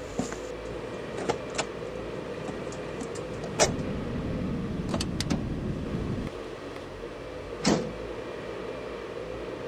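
A car's bonnet being handled: a sharp metallic click about a third of the way in as it is held up, light clicks of hands working under it, and a heavier thump near the end as the bonnet comes down, over a faint steady hum.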